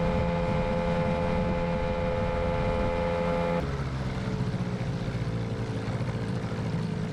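Boat's outboard motor running steadily. About three and a half seconds in, its pitch and level drop slightly and it runs on lower.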